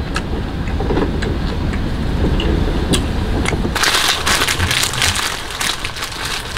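Foil-wrapped food sizzling and crackling on top of a camping heater: a dense crackling hiss that sets in suddenly about four seconds in. Before that, only a low rumble with a few faint clicks.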